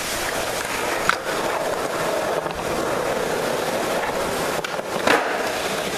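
Skateboard wheels rolling on a concrete floor, with a sharp clack about a second in and a louder clack about five seconds in.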